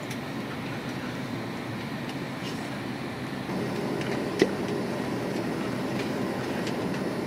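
Steady cabin noise of a jet airliner in flight, the even rush of the engines and airflow, as the plane descends toward landing. A faint click about four and a half seconds in.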